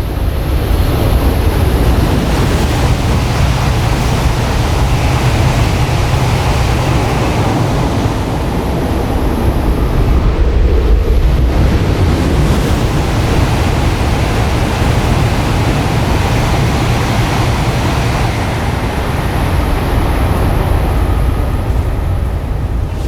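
Coupled E8 and E5 series Shinkansen trainset passing through a station on test, a loud, steady rushing of wheels and air.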